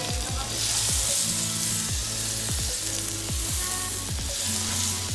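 Butter sizzling as it melts in a hot pan, under background music with a repeating low beat.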